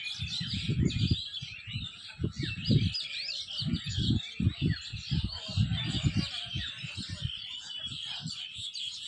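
Many small birds chirping busily, their calls overlapping in a steady chorus, with irregular low thumps underneath.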